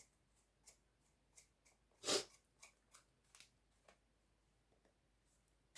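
Faint scattered clicks and one short, louder scrape of a lighting stand's extendable pole being handled and pulled out to extend it further, with a sharp click near the end.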